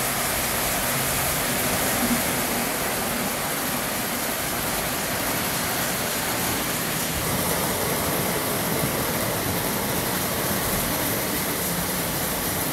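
O gauge model trains running on three-rail track: a steady rumble of metal wheels on the rails and electric motors as cars pass close by.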